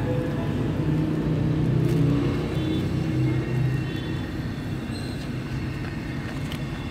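Low, steady rumble of a motor vehicle engine running nearby, easing off slightly in the second half.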